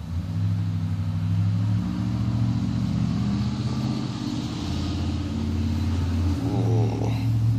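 An engine running steadily, its low hum stepping up and down in pitch a few times.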